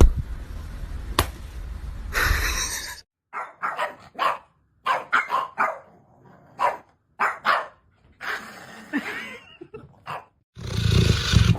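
A dog barking in a run of short, separate barks.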